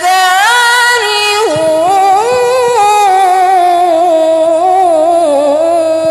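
A young woman's voice reciting the Qur'an in the melodic tilawah style, amplified through a handheld microphone: quick ornamented turns in pitch in the first half, then one long held note.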